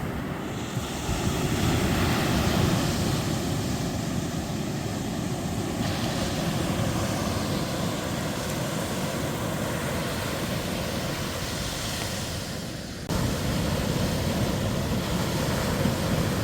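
Ocean surf washing onto a sandy beach, a steady rushing with slow swells, mixed with wind rumbling on the microphone. The sound jumps abruptly louder about thirteen seconds in.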